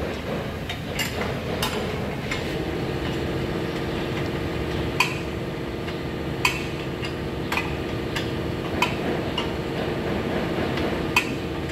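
Workshop background noise with a steady machine hum that starts a couple of seconds in, and scattered sharp metallic clicks of hand tools as a mechanic works on a car's front suspension.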